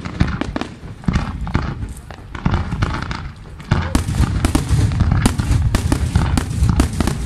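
Fireworks display: a rapid series of sharp bangs and crackles over a deep rumble, growing denser and louder about four seconds in.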